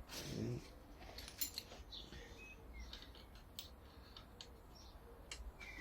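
Faint scattered metallic clicks and taps of hand tools being handled on the motorcycle's front end, with faint bird chirps in the background.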